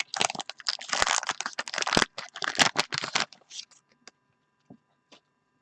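A wax-paper trading card pack being torn open and crinkled for about three seconds, then a few faint clicks as the cards are handled.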